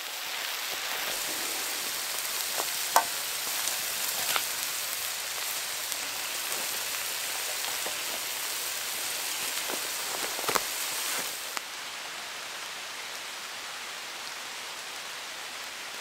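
Sausages, bacon and black pudding sizzling on a cast iron griddle over a wood fire, with a few sharp pops. About twelve seconds in this gives way to a quieter, steady hiss of rain falling on a stream.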